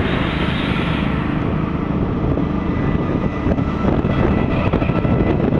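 Wind rushing over the microphone and road noise from a moving scooter, a steady loud rumble with irregular buffeting.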